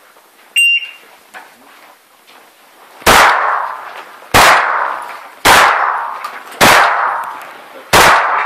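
An electronic shot timer gives one short high beep to start the run. About two and a half seconds later a shotgun fires five shots, roughly a second and a quarter apart, each ringing off for about a second.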